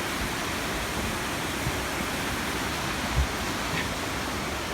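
Steady rushing noise of flowing water, with a brief low thump about three seconds in.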